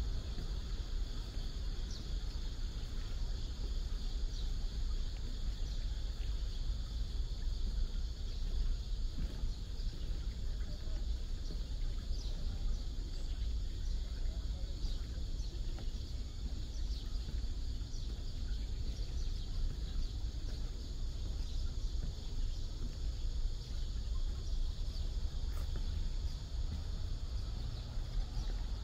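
Steady, high-pitched chorus of insects singing from the reeds, unbroken throughout, over a low steady rumble.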